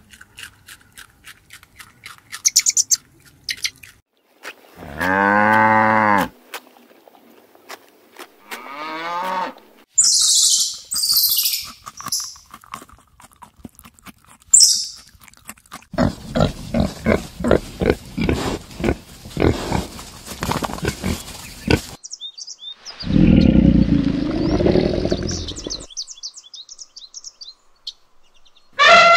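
A series of different animal calls cut one after another, each lasting a second or several. There are soft clicks at the start, short pitched calls, and high calls. An even pulsing stretch is followed by a long low call a few seconds before the end.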